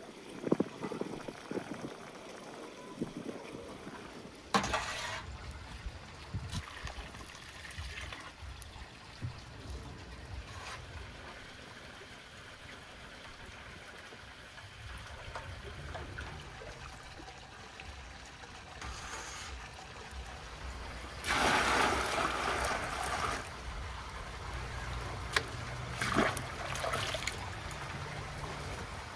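Water trickling, with scattered clicks and knocks, and a louder rush of noise lasting about two seconds about three-quarters of the way through.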